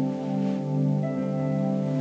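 Soft ambient background music: sustained chords that swell and fade gently about once a second.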